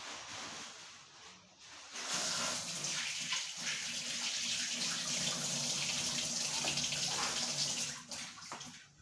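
Kitchen tap running, water splashing into the sink. It starts about two seconds in and stops about a second before the end.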